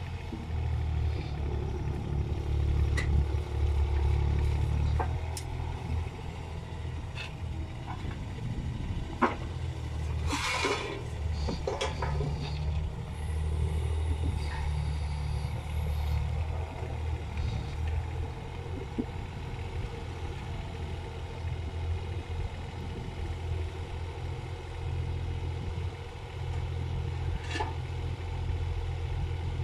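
Kubota mini excavator's diesel engine running, its low rumble swelling and easing several times as the hydraulics work the boom. Occasional sharp knocks of concrete blocks being handled, and a brief hissing scrape about ten seconds in.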